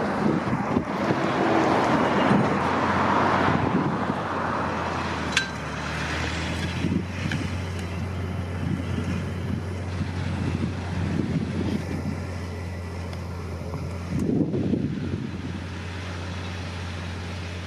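Caterpillar Challenger MT875C tracked tractor's diesel engine running steadily under load while pulling a heavy cultivator through stubble, with a noisy rush louder in the first few seconds as it passes close.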